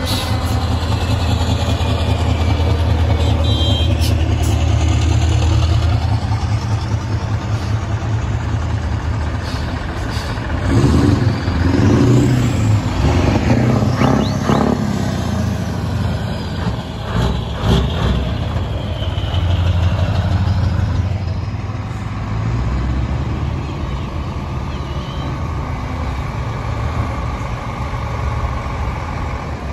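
Diesel engines of heavy truck tractor units running as they drive slowly past one after another, loudest about 11 to 15 seconds in as a red Scania goes by. A few short sharp sounds stand out over the engines near the middle.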